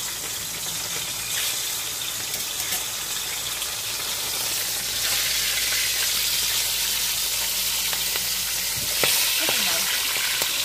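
Fish pieces frying in hot oil in a pan: a steady sizzle that grows louder about halfway through, with a single sharp tap near the end.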